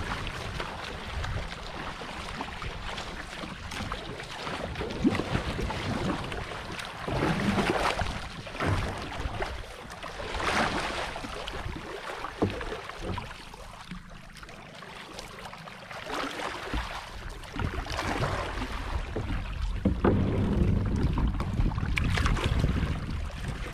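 Water splashing and slapping against the hull and outrigger floats of a small paddled outrigger canoe, in irregular surges every two to three seconds, over a steady low rumble of wind on the microphone.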